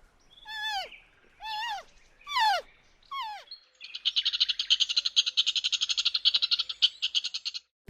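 Animal calls: four short calls, each rising briefly and then falling in pitch, followed about four seconds in by a fast, high-pitched rattling trill that continues for nearly four seconds.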